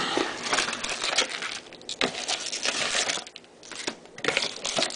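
Foil-wrapped baseball card packs and their cardboard blaster box being handled: the packs crinkle as they are taken out and stacked on a desk, in irregular bursts with a few sharp taps.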